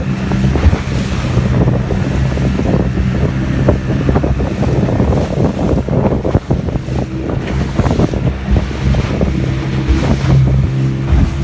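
A small motorboat under way: its engine runs with a steady hum while wind buffets the microphone and choppy water splashes against the hull.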